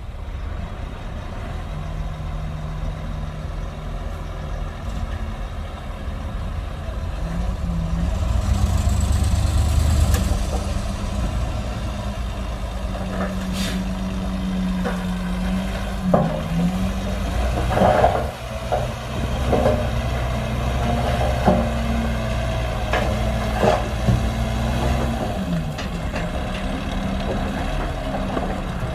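Shantui DH17C2 bulldozer's diesel engine working under load, its pitch rising and falling as it is throttled, loudest about a third of the way in. Several sharp clanks and knocks come in the second half.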